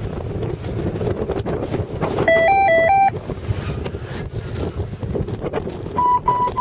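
Strong wind rushing over the microphone on an open slope, with electronic beeps from an F3F course timing system: a quick run of four alternating two-pitch beeps about two seconds in, and four short, even, single-pitch beeps near the end, the timer's signals for the glider's base crossings during its speed run.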